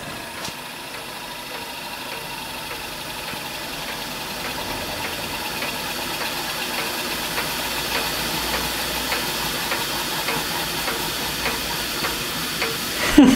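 Steady hiss of steam jetting from the nozzles of a scratch-built Hero engine (aeolipile), growing louder as the boiler builds pressure. The engine is on the verge of having enough steam to spin.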